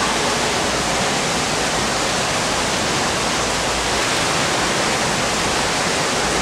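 Steady rushing water noise in an indoor pool, with a swimmer kicking and splashing through the water.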